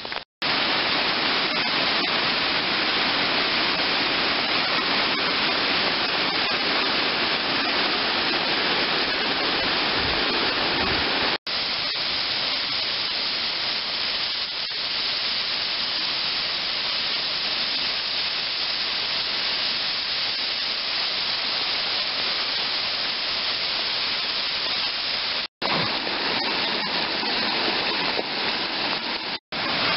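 Steady loud rush of running water from rain-swollen waterfalls and a stream pouring over rock. The sound breaks off sharply several times in brief silences.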